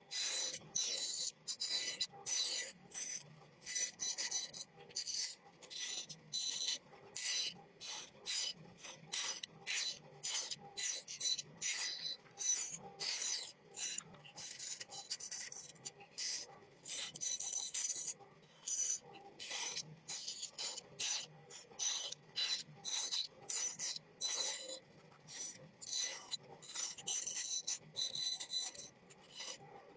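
A blade cutting and scraping across a wooden board in quick, repeated rasping strokes, a few each second.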